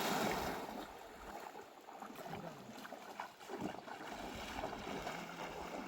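Running river water, a steady rush with a few light splashes.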